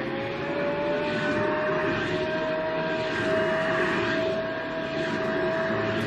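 Vacuum cleaner motor running just after switch-on: a steady high whine over a rushing of air, its pitch still creeping up a little in the first couple of seconds before it levels off.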